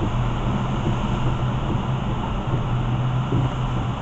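Inside a vehicle's cabin, driving slowly on a wet freeway: a steady drone of engine and tyres on the wet road, with a low steady hum underneath.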